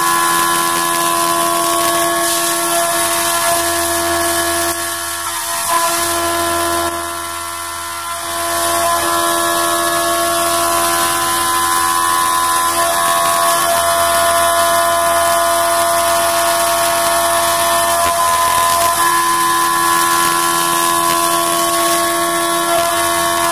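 CNC vertical milling machine's end mill cutting aluminium under flood coolant: a steady, high-pitched machining whine made of several held tones. It drops in level for a couple of seconds about five seconds in, then resumes at full strength.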